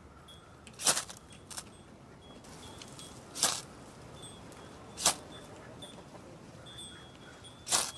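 A ferrocerium rod (fire steel) scraped hard with a knife spine: four sharp scrapes a couple of seconds apart. The sparks are not catching in the dried willow-leaf tinder because the stems keep them from getting in.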